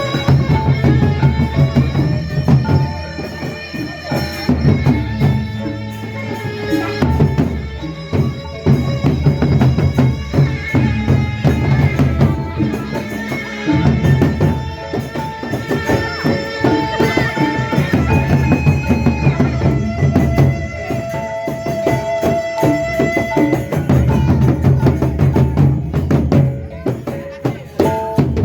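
Group playing an instrumental drum-led opening piece: dense, fast drumming and percussion with low drum passages and melody lines held over them.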